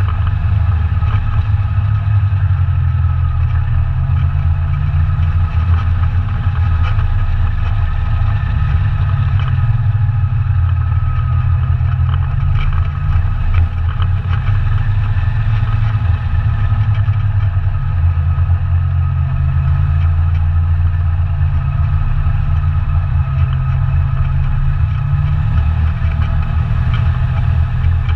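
ATV engine running steadily under way, with a deep rumble that rises and eases slightly.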